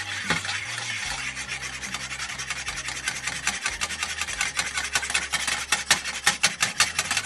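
Frying pan shaken back and forth on the metal grate of a gas hob to loosen an omelette: a rhythmic scraping rub. The strokes grow louder and sharper in the last few seconds.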